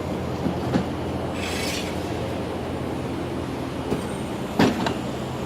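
A truck tire changer's motor runs with a steady mechanical hum. There is a short hiss about a second and a half in, and a few metal knocks as the tool arm is slid over and set, two of them close together near the end.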